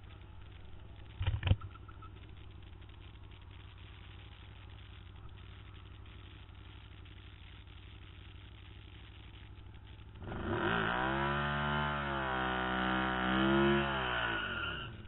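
Can-Am Spyder engine idling at the drag strip start line, with a few sharp knocks about a second in. About ten seconds in the engine is revved up and held high for some four seconds, then let back down.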